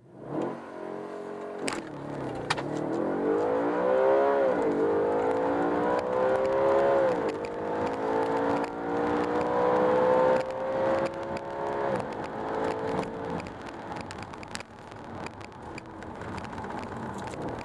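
Audi RS5's 4.2-litre V8, fitted with a Quattro GmbH exhaust and heard inside the cabin, at full-throttle acceleration through the gears. The engine note rises steeply in each gear, with quick upshifts about four and a half, seven and twelve seconds in. Near the end the throttle is eased and the engine note dies down.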